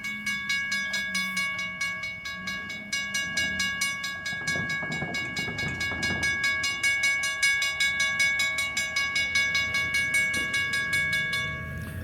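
WRRS mechanical railroad-crossing bell ringing with rapid, even strokes, about four a second, on active crossing signals. Underneath is the low rumble of an approaching freight train, strongest a few seconds in.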